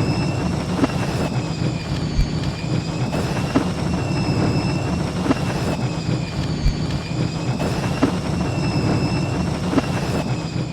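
Sound effect of the Mandalorian Fang (Kom'rk-class) starfighter's engine running: a steady low rumble under a high whine that wavers slowly up and down, beginning to fade at the very end.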